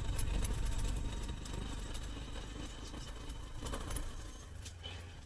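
Motorcycle engine running with a low, steady hum at riding speed, with light clicks and rattles from the bike jolting over a broken, potholed road.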